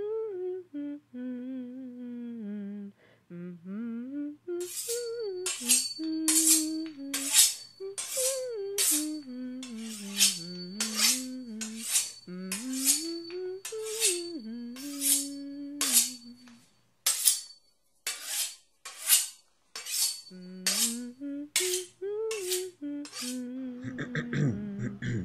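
A person humming a slow, wandering tune, joined about five seconds in by a dry rattling percussion stroke keeping a steady beat a little under a second apart. The humming breaks off for a few seconds past the middle, then comes back while the beat goes on, and both stop near the end.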